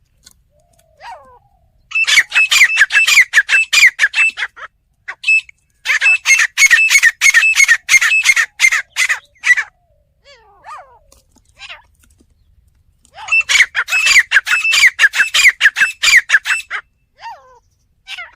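Teetar (francolin) calling: three loud bursts of rapid, repeated shrill notes, each about three seconds long, with a few faint single calls between them.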